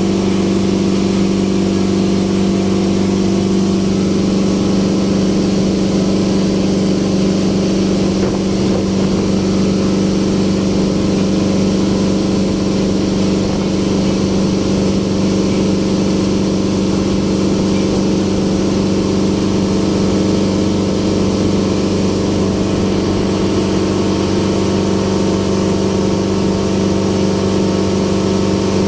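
Passenger ferry's engine running steadily under way, a constant low drone with a strong hum.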